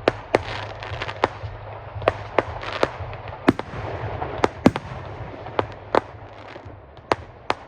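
Fireworks display: a rapid, irregular series of sharp bangs and cracks over steady low background noise.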